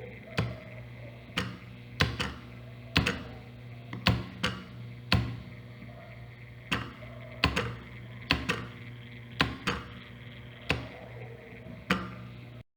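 Homemade experimental telegraph clicking as Morse code is sent: sharp, irregularly spaced clicks of the key and the electromagnet's armature, some in quick pairs, over a steady low hum.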